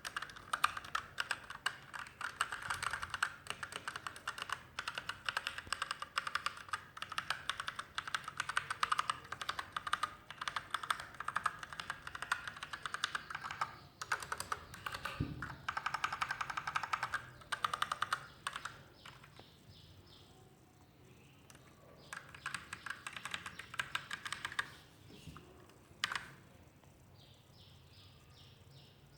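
Typing on a Magegee MK-Star 87-key mechanical keyboard with red linear switches: rapid runs of key clicks in bursts, with pauses at about 14 s and from about 18 to 22 s, and a single keystroke near 26 s.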